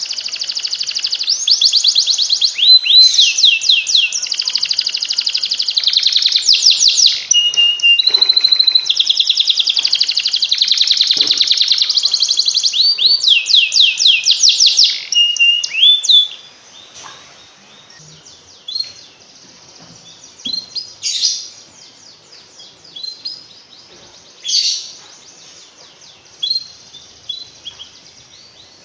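Canary singing a long, continuous song of fast rolling trills for about sixteen seconds, then breaking off into quieter, scattered short chirps.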